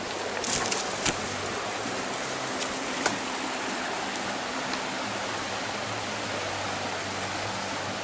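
A swollen, fast-flowing river rushing steadily. A few sharp clicks and knocks come in the first second and once about three seconds in.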